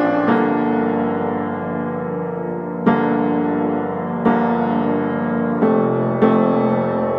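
Background piano music: slow, sustained chords, with a new chord struck every one to two seconds.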